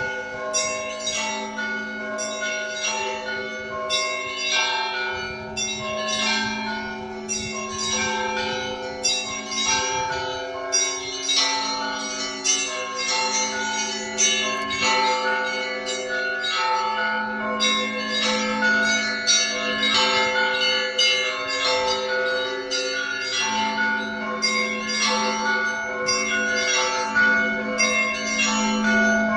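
Russian Orthodox church bells rung together: a deep bell booms steadily underneath while smaller bells are struck in quick, busy patterns, several strokes a second.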